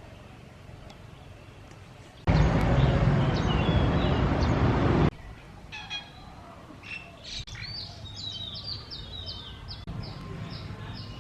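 Small birds chirping, many quick high calls repeated one after another through the second half. Before them, a loud rush of noise lasting about three seconds starts and stops abruptly.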